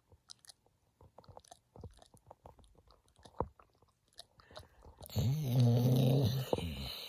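A sleeping dog snoring: one loud, drawn-out snore starts about five seconds in, its pitch arching up and then down, after a few seconds of faint scattered clicks.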